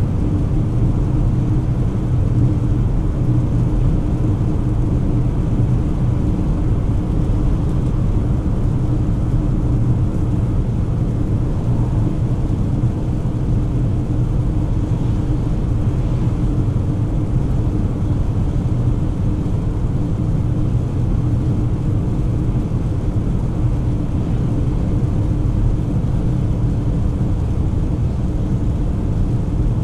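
Inside the cabin of a 2024 Volvo XC40 B3 cruising steadily on a wet road: a steady low drone of the four-cylinder petrol engine and road noise, with tyre hiss from the wet surface.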